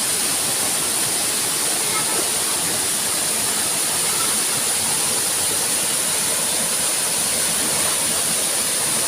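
Waterfall rushing steadily, an even wash of falling-water noise with a steady high-pitched hiss above it.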